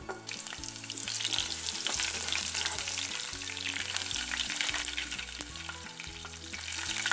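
Garlic cloves sizzling and crackling in hot olive oil in a saucepan. The sizzle starts as the cloves drop in and builds within about a second, easing slightly near the end before picking up again.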